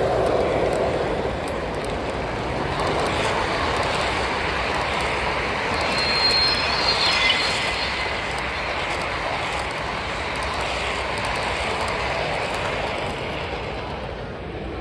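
O gauge model freight train rolling past, a steady running noise of its wheels on the track, with a brief high thin tone about six to seven seconds in.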